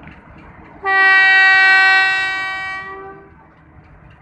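Diesel locomotive's air horn sounding one long blast, a steady chord that begins about a second in, holds for about two seconds and then fades away. It is the departure signal of a passenger train, heard over a low steady rumble of the idling engine.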